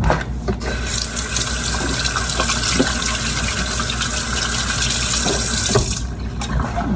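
Kitchen tap running water into a sink for about five seconds, turned on about a second in and shut off about a second before the end, with a few light knocks.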